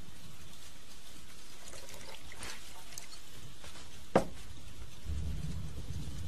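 A drink being poured into a glass, with one sharp clink about four seconds in. A low rumble starts near the end.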